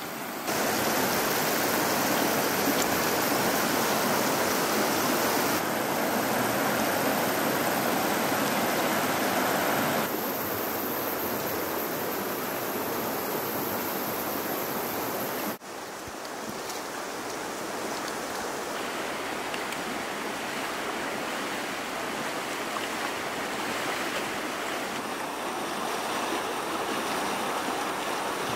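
Shallow mountain stream running over stones: a steady rush of water that drops abruptly in level a few times, sharply at about two-thirds through.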